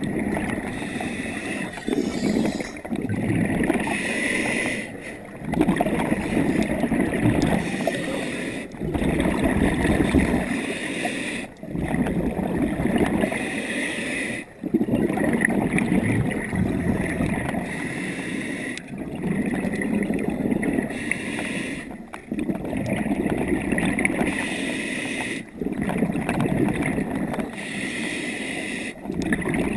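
Scuba diver breathing through a regulator underwater: a hiss on each inhale alternating with gurgling exhaust bubbles, in a steady rhythm of breaths every few seconds.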